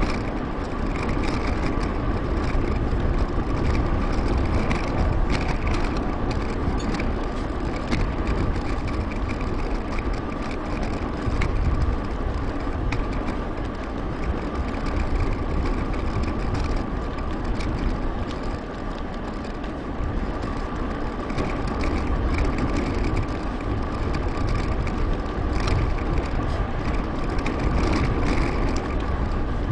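Wind rushing over a GoPro action camera's microphone while cycling at speed, mixed with bicycle tyre and road noise, with a faint steady whine throughout.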